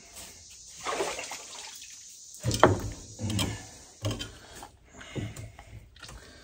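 Irregular water splashing and sloshing, with a few knocks and thuds from handling, the loudest about two and a half seconds in.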